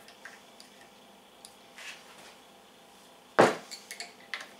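Allen wrench clicking on the screws of a stepper motor as they are tightened down onto the Z-axis plate of a CNC router kit. A few light, scattered clicks, then one sharp knock about three and a half seconds in, followed by several lighter clicks.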